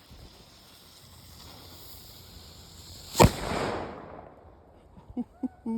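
A small firecracker's lit fuse fizzing with a steady high hiss, then the cracker going off with a single sharp pop about three seconds in, with a short echo, after which the hiss stops.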